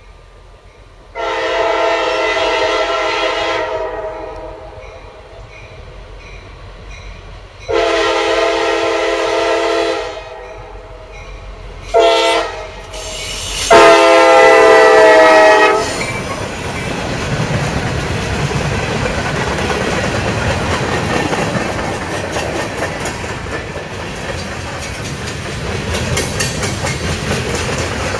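Norfolk Southern SD40E, leading long hood forward, sounds its multi-chime air horn in the grade-crossing pattern: long, long, short, long. The locomotive then passes close by, and a freight train follows, its wheels clattering over the rails.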